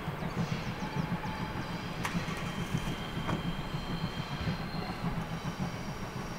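Passenger coaches of a train rolling away along the track: a steady low rumble with faint high wheel squeals, fading slowly. There is a sharp click about two seconds in.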